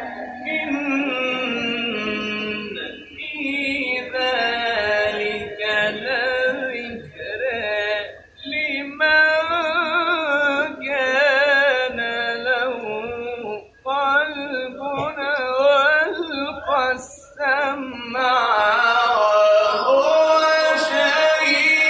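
A man reciting the Quran in the melodic style: long held, ornamented phrases with wavering pitch, separated by brief pauses.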